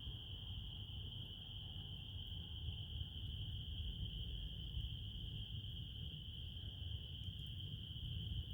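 Crickets chirring in a steady chorus, one continuous high-pitched trill that neither breaks nor changes, over a low rumble.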